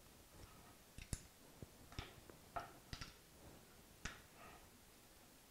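Faint metal-on-metal clicks and ticks as a T-handle hex key is worked in the jaw screws of a Hurricane HTC125 four-jaw woodturning chuck to take its jaws off. Several scattered sharp clicks fall between about one and four seconds in.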